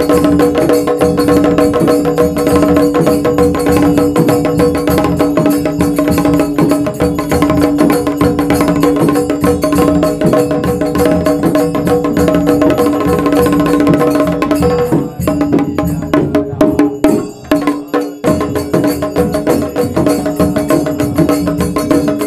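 Shamel drums played fast with two thin sticks in Goan ghumat aarti music, over a steady held note. About 15 seconds in, the held note stops and the drumming thins out for a few seconds, then the fast strokes return.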